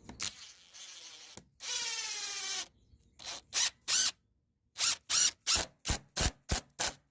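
Impact driver sinking a GRK structural screw into cedar. About a second of steady motor whine comes first, then a string of short, loud bursts, roughly three a second, as the screw is driven home.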